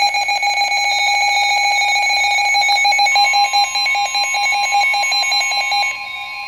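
Electronic alert tones of a NOAA Weather Radio warning alarm, signalling a severe thunderstorm warning. A loud, rapidly pulsing beeping tone is joined about three seconds in by a second steady, slightly higher tone. Near the end the pulsing tone drops away and the level falls.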